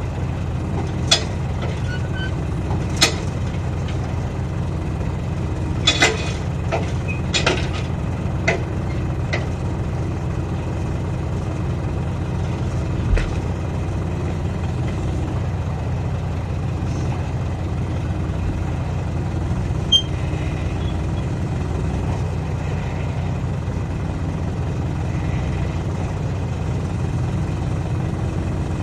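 A heavy engine idling steadily with a low hum, broken by sharp metallic clanks and knocks from work at the tyre. The knocks come several times in the first ten seconds, then once or twice more.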